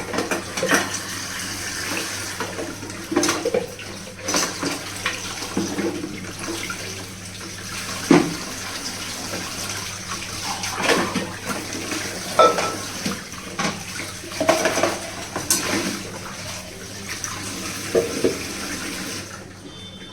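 Water running from a kitchen tap into a sink while dishes are washed, with frequent clinks and knocks of pots and plates against each other. The water cuts off near the end.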